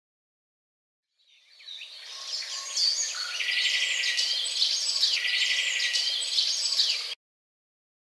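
A chorus of birds chirping and singing, with fast repeated trills over a steady background hiss. It fades in about a second in and cuts off suddenly near the end.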